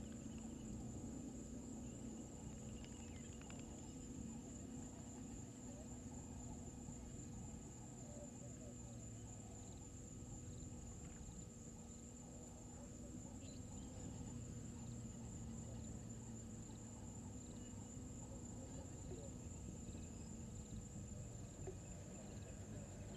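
Insects trilling in the bush, a steady high-pitched drone over a low, even rumble. About halfway through, a faint short chirp starts repeating roughly once a second.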